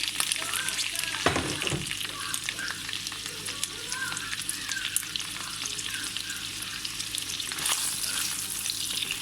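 Chicken gizzards sizzling and crackling in hot vegetable oil in a frying pan while being stirred, with a knock against the pan a little over a second in.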